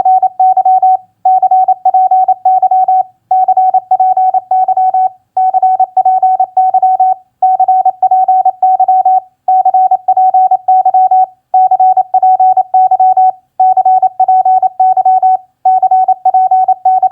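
Morse code (CW) practice tone sent at 28 words per minute: a single steady pitch keyed rapidly on and off in dots and dashes. It comes in short groups of characters, such as the QSO phrases HW CPY and GUD CPY, each lasting under two seconds with a brief gap about every two seconds.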